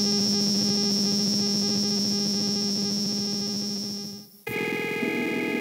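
Sustained electronic synthesizer drone with a fast pulsing texture that fades out about four seconds in. A different sustained synth tone cuts in half a second later.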